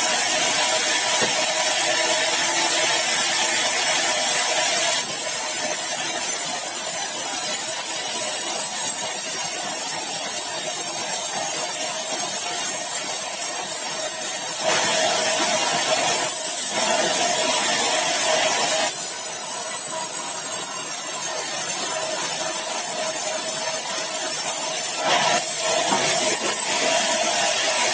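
Sawmill saw cutting through a large, dry, hard bengkirai (balau) log: a steady, bright cutting noise that shifts in tone about five seconds in and again around fifteen and nineteen seconds.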